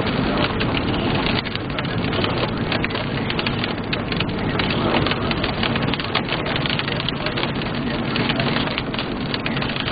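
Heavy rain hitting a moving car's windshield and roof as a dense run of quick taps, over steady tyre noise on a wet road.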